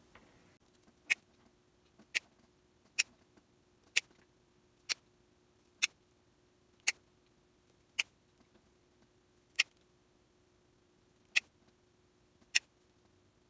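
Dritz snap pliers with a hole-punch attachment punching holes through ponte knit fabric. Each squeeze makes a sharp click, about eleven clicks at roughly one a second, with a longer gap near the end.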